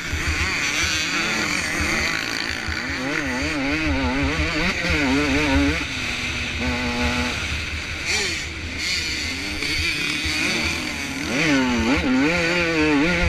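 Motocross dirt bike engine under race riding, its revs rising and falling rapidly and over and over as the throttle is worked, with a low wind rumble on the microphone.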